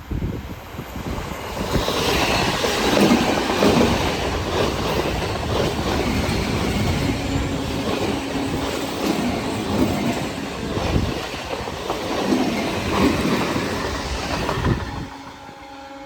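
Indian train running close past on a sharp curve: wheels clattering over the rail joints, with intermittent squeal from the wheels on the curve, the sound falling away about a second before the end.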